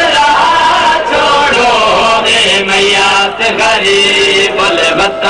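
Men chanting a noha, a Shia mourning elegy, in long drawn-out sung lines that bend and step in pitch.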